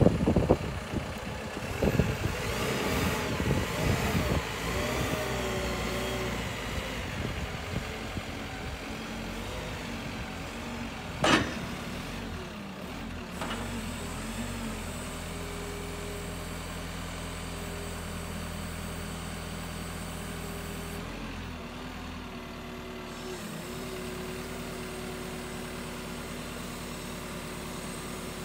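Caterpillar TH357D telehandler's diesel engine running. It revs up and down in the first several seconds while the boom is raised on the hydraulics, then settles to a steady idle. There is a single sharp knock about 11 seconds in.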